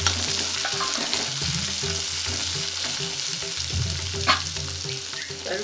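Sliced onions and green chillies sizzling in hot sesame oil in a kadai as they are sautéed, stirred with a metal spatula that scrapes against the pan, with a sharper knock about four seconds in.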